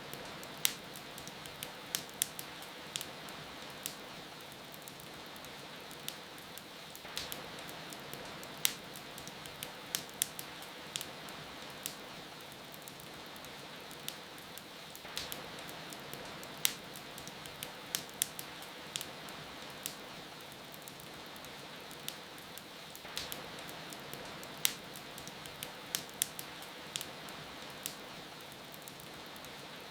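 Wood fire crackling with irregular sharp pops over a steady hiss of rain.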